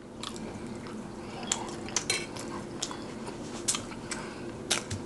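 Close-miked eating sounds: a mouthful of chili-topped fries being chewed, with irregular sharp wet clicks and smacks from the mouth.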